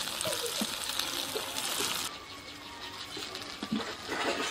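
Pieces of a banana snack sizzling as they are laid into hot mustard oil in a kadhai for shallow-frying. The hiss drops sharply about two seconds in, and a short louder burst comes near the end.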